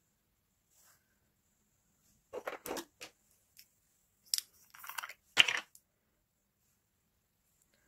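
Handling noise from makeup items being picked up and put down: a few short clicks, clatters and rustles between about two and six seconds in, the sharpest one a little after five seconds.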